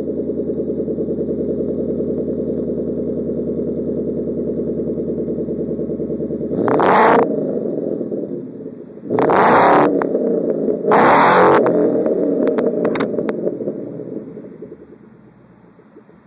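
2013 Mustang GT's 5.0 V8 through a Roush axle-back exhaust with a BBK off-road X-pipe, idling with a steady pulse, then revved hard three times and blipped a few times quickly. The sound falls away near the end.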